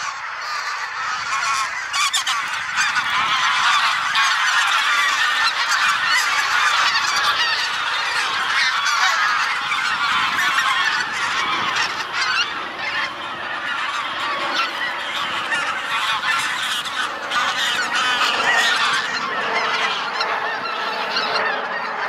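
A large flock of greater white-fronted geese calling in flight: a dense, continuous chorus of many overlapping honking calls.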